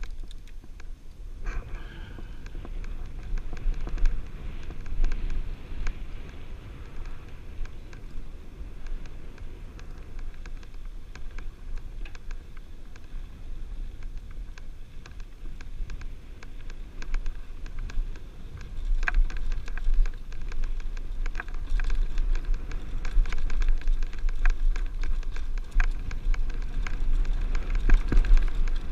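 A mountain bike riding a dirt singletrack: wind rumbling on the helmet-camera microphone over the crunch and patter of tyres on dirt and gravel, with scattered rattles and clicks from the bike. The clicks grow busier and the sound louder from about 19 seconds in.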